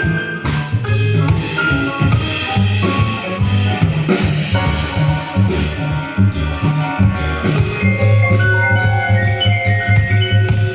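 Live jazz quartet playing: a drum kit keeping time over a steady, repeating bass line, with melodic instrument lines on top.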